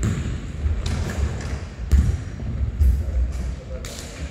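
Ball thuds from a futsal ball being kicked and bouncing, five sharp knocks about a second apart, echoing in a large sports hall over a low rumble of hall noise.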